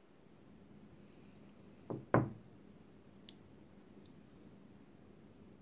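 Two short knocks of hard objects being set down, a moment apart about two seconds in, then a faint click.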